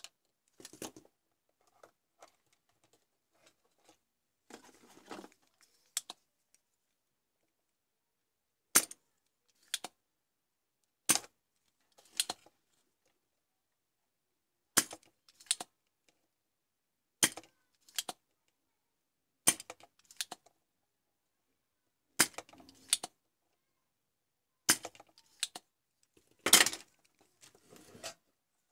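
Sharp light clicks and taps from small hand tools and parts being handled during soldering on a circuit board, mostly in pairs about every two to three seconds.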